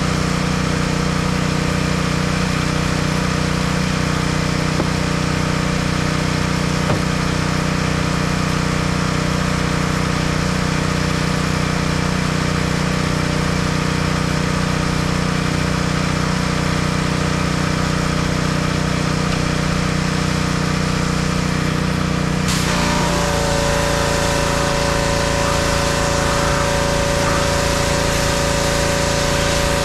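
Pressure washer's engine running steadily. About three-quarters of the way through, its note shifts and a spray hiss joins as the wand is opened and the pump takes load.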